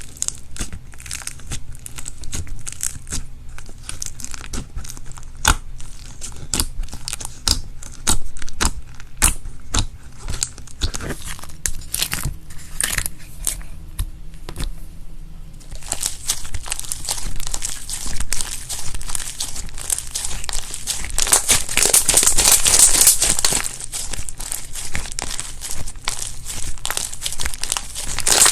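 Slime being worked by hand, giving many sharp crackles and pops. The crackles come separately at first, then turn into a dense, continuous crackling about halfway through.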